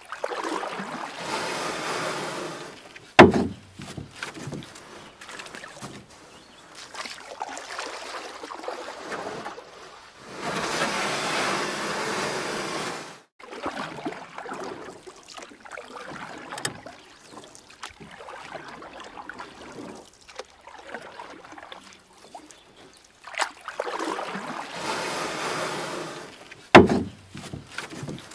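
Kayak paddling: water splashing and dripping off paddle strokes in rushes of a few seconds over a low trickle. Two sharp knocks, about three seconds in and near the end, are the loudest sounds.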